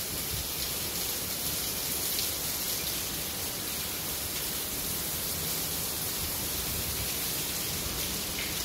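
Heavy rain pouring steadily.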